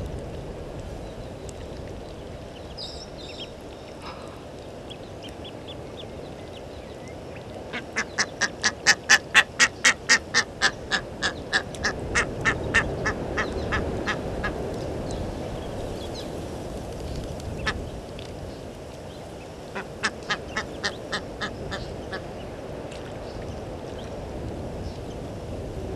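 Egyptian goose honking in a long run of repeated calls, about four a second at first and then spacing out. A shorter run of the same calls comes later.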